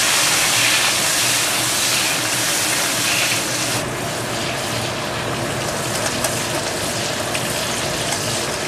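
Chillies, tomato and shallots frying in hot oil in a pan, a steady sizzling hiss that eases gradually.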